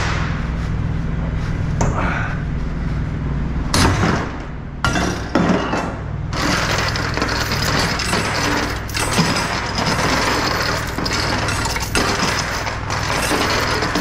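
Steel tie-down chain and a lever chain binder being released: a sharp metallic snap about four seconds in as the binder comes open, then chain rattling and clinking as it is pulled loose from the coil.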